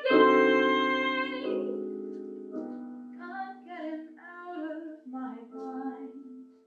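Woman singing a long held final note of a musical-theatre song over piano. The piano then plays a few more quiet notes alone and dies away.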